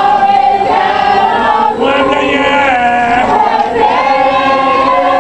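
A congregation of worshippers singing a sacred chant together, many voices on long held notes.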